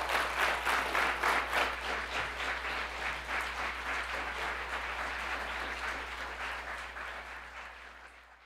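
Audience applauding, strongest in the first couple of seconds, then slowly tapering off and fading out at the very end.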